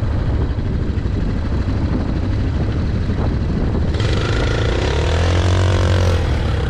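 Vehicle engine running with a steady low rumble under a rush of noise, rising in pitch and falling back once between about four and six seconds in: an off-road drive on sand.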